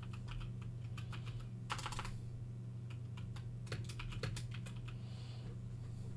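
Computer keyboard typing: scattered key clicks with two quicker flurries, about two and four seconds in, over a steady low hum.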